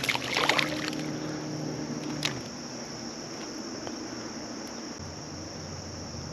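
Steady chorus of crickets. Short scratchy handling clicks and rustles sound in the first second, with one sharp click about two seconds in.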